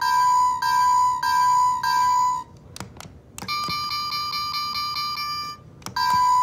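Electronic bell sound of a toy railroad crossing: a chiming tone repeating about every 0.6 s, as a crossing bell does. It cuts off about two and a half seconds in, there are a couple of clicks, and then a higher, steadier electronic tone plays for about two seconds. After another click, the repeating bell starts again near the end.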